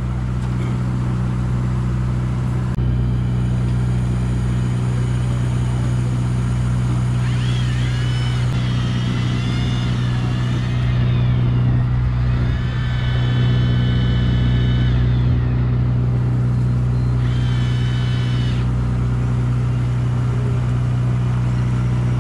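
Boat engine droning steadily with a low hum. Over it, an electric fishing reel's motor whines as it winds in line, three times: first wavering in pitch, then held steady for a few seconds, then a short final burst.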